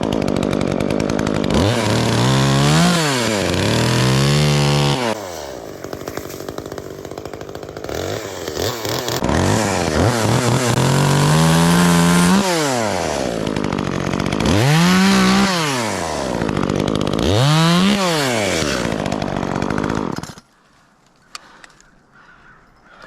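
Chainsaw revving up and down about six times while cutting off branch stubs on a pine trunk, then shutting off suddenly near the end.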